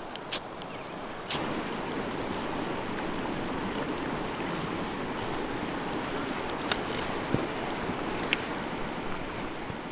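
Steady outdoor water noise, a rush of lapping or flowing water with some wind. A few short sharp ticks sound over it, one about a second in and several more near the end.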